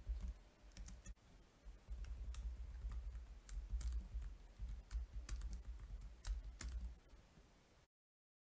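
Typing on a computer keyboard: a run of faint, quick key clicks that stops about a second before the end.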